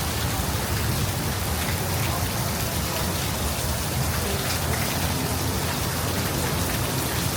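Heavy rain falling, a steady even hiss of rain on surfaces.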